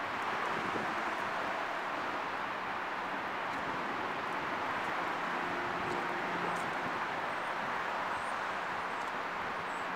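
Steady outdoor city background noise: an even, continuous rush of distant traffic with no distinct events, and a few faint high chirps near the end.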